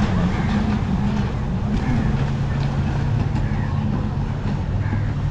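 Jet-ski and speedboat engines running out on the lake, a steady drone that shifts in pitch as they race, with crowd chatter.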